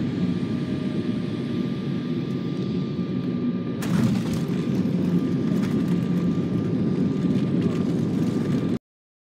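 Jet airliner cabin noise during landing: a steady rumble of engines and airflow with a faint whine. A sudden jolt comes about four seconds in, and the rumble grows louder after it.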